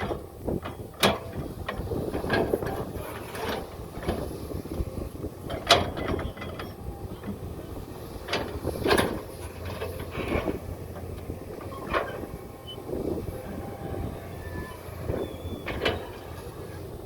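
Heavy machinery at work: a steady low engine rumble with irregular sharp metal clanks and knocks.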